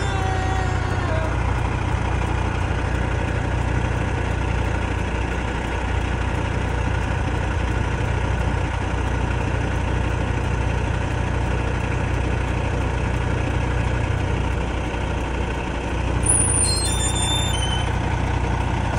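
Semi-truck diesel engine idling with a steady low hum. About three-quarters of the way in there is a brief cluster of high-pitched squeaks.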